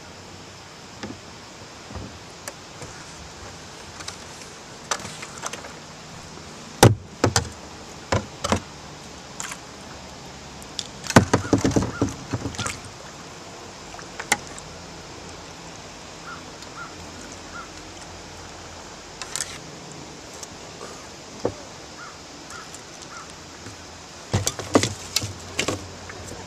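Scattered sharp knocks and clicks of fishing gear and a plastic kayak hull being handled while an angler works a fish snagged in weeds, over a faint steady background; the knocks bunch together about eleven seconds in and again near the end.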